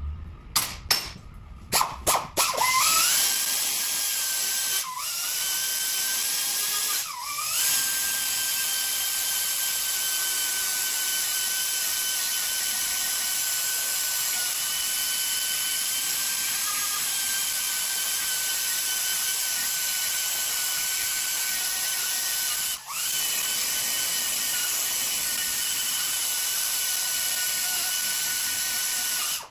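Pneumatic die grinder porting the TVS supercharger housing. It starts with a few short bursts, then holds a steady high-pitched whine, dropping away briefly about 5, 7 and 23 seconds in.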